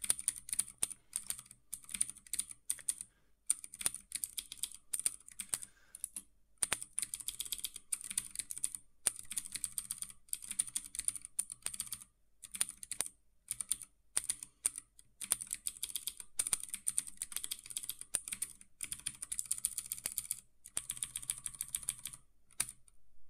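Computer keyboard typing: quick runs of key clicks with a few short pauses in between.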